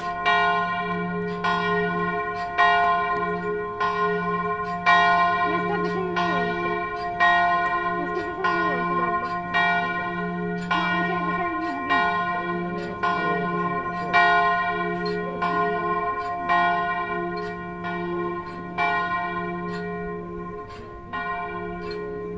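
A church bell tolled at a steady pace, a stroke a little over once a second, each stroke ringing on into the next.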